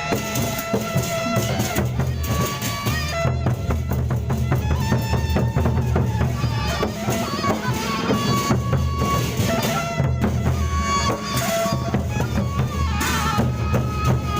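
Gendang beleq ensemble playing traditional Sasak processional music: large drums and clashing cymbals keep up a dense, steady beat under a held, stepwise melody.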